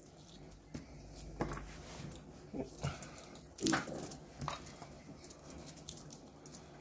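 Faint handling sounds of hands stuffing sliced onion and lemon into the cuts of a whole raw kahawai on tinfoil: soft rustles and taps on the foil, a few short scattered sounds, the loudest about three and a half seconds in.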